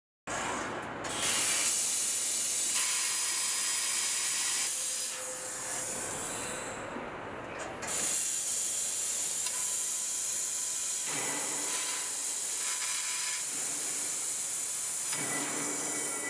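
Fiber laser tube cutting machine cutting steel channel: a loud, steady hiss from the cutting head's gas jet and spraying sparks. The hiss drops away for about a second around seven seconds in, then resumes.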